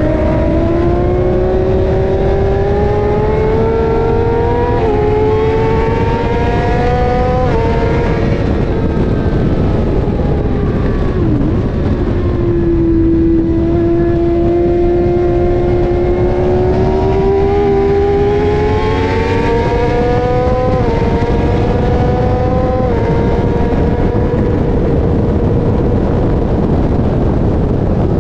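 Sport motorcycle engine heard from on board at track speed, its pitch climbing in long pulls with a few abrupt steps, dipping briefly about a third of the way in, then climbing again. Heavy wind rush on the microphone runs underneath.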